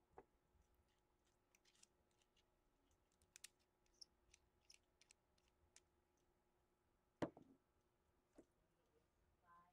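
Faint small clicks and taps of a metal airbrush and its parts being handled and fitted together by hand. About seven seconds in comes a single louder knock as the airbrush is set down on the wooden desk, with a lighter tap a second later.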